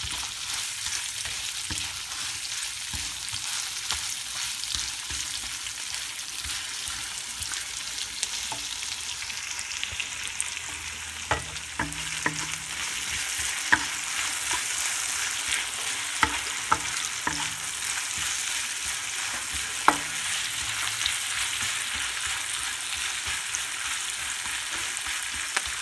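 Ginger, garlic and onions sautéing in hot olive oil: a steady sizzle, with the stirring utensil knocking sharply against the pan about seven times midway through.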